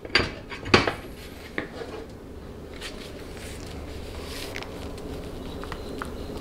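Steel transmission through shaft knocking against a cast-iron clutch drum as it is pushed into the drum's splines: two sharp metal clunks in the first second, then faint light clicks as the shaft is rocked to check spline play, over a low steady hum.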